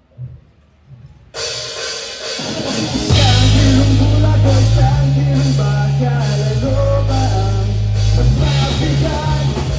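Live rock band starting a song: a second or so of near-quiet with a couple of light hits, then cymbals and guitars come in suddenly, and by about three seconds the bass and drums are playing in full with the bass moving between notes.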